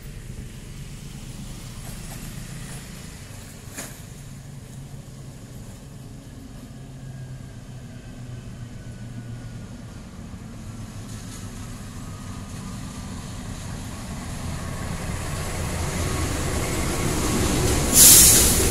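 KAI diesel-electric locomotive hauling a container freight train approaching, its low engine rumble growing steadily louder over the last few seconds. Near the end a short, loud hiss-like burst stands out as the loudest sound.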